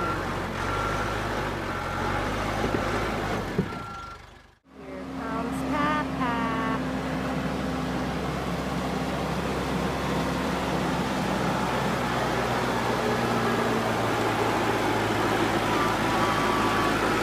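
Backhoe engine running steadily, with its reversing alarm beeping in the first few seconds. The sound cuts out for a moment about four and a half seconds in, then the engine runs on steadily.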